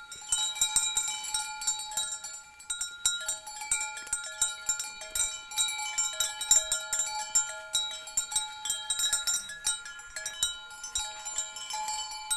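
Cowbells on cattle clanking irregularly: several bells at different pitches ringing and overlapping as the cows move.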